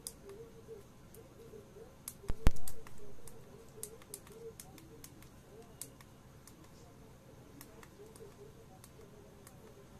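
Scattered light clicks, with two sharp, loud pops close together about two and a half seconds in.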